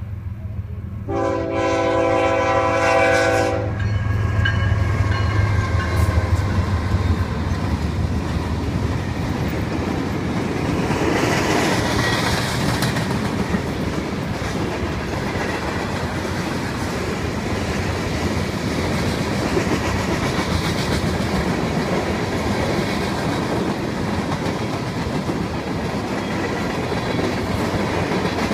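Diesel freight locomotive horn sounding one long blast about a second in, then the locomotives rumble past and a long string of freight cars rolls by, the wheels clacking steadily on the rails.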